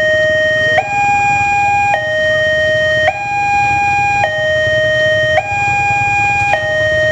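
Railway level-crossing alarm sounding an electronic two-tone siren, a higher and a lower tone taking turns about every second, the warning that a train is approaching the crossing.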